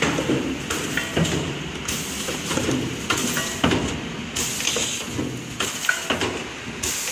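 Heat-transfer printing machine for soft plastic tubes running, with a busy clatter of clacks and knocks from its tube-handling mechanism, a few each second, over a hiss that cuts in and out.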